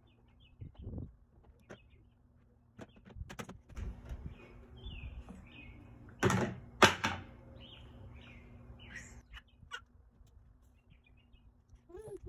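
A plastic baby plate knocking and clattering against a plastic high-chair tray, with two loud knocks about six and seven seconds in. Small birds chirp in the background.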